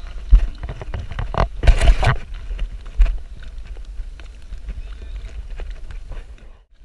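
Knocks and handling clatter on a plastic fishing kayak, several sharp ones in the first three seconds, then lighter clicks, over a steady low rumble of wind and water on the microphone.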